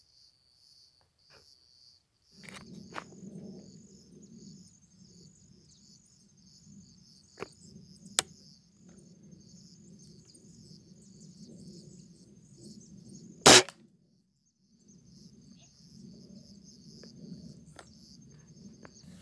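A single sharp crack from a 5.5 mm air rifle shot about two-thirds of the way through, by far the loudest sound. Around it, insects chirr steadily in the background, and there are a few small clicks and a low rumble of handling noise.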